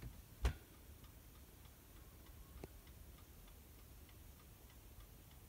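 Faint regular ticking over low room tone, with one sharper click about half a second in.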